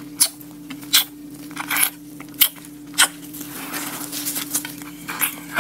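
Close-miked mouth sounds of eating a Bungeo Ssamanco fish-shaped wafer ice cream sandwich: about six short, sharp lip smacks and bites, spaced roughly half a second to a second apart, with soft chewing noise in the second half.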